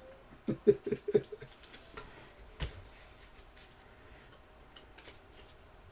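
Trading cards and packs being handled on a table: a quick run of light clicks and rustles in the first second or so, then a single knock about two and a half seconds in.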